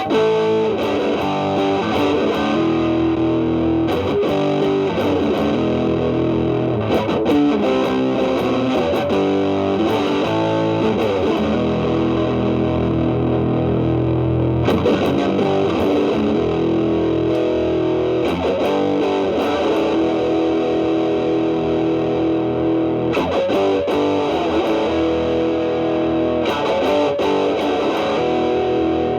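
Stratocaster electric guitar played through an Xotic BB Plus preamp pedal into a Marshall Valvestate amp, with the pedal's B channel gain set low, giving a lightly overdriven tone. The playing mixes held notes with quicker runs of notes.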